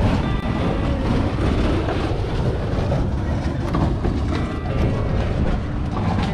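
Wind rumbling on the microphone, a steady low buffeting, over faint background voices.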